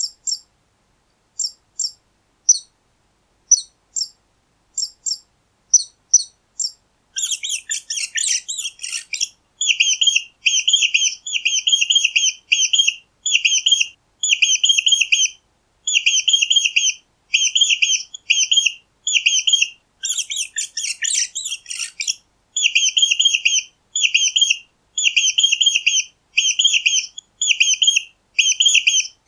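Mice squeaking: short high-pitched squeaks about once a second at first, then from about seven seconds in, rapid clusters of squeaks in quick succession, with two denser chattering flurries.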